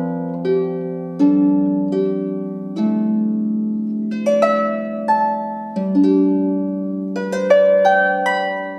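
Harp playing a slow, simple melody like a lullaby: single plucked notes, about one or two a second, each ringing and fading over sustained low bass notes.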